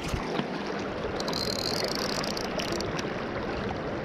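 Swift river current rushing steadily, with a few faint scattered clicks.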